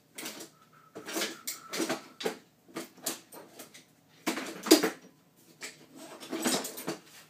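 Irregular knocks, scrapes and rattles of cabinet parts being handled and worked into place, the loudest knock about four and a half seconds in.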